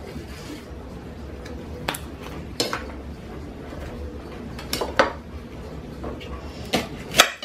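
Kitchen knife cutting through leek stalks and striking the plate beneath: about six sharp, separate knocks, the loudest near the end, over a faint steady hum.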